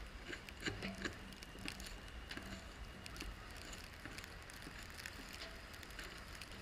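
Car driving over a snowy road: a low steady rumble with scattered crunching clicks and crackles, a few louder ones about a second in.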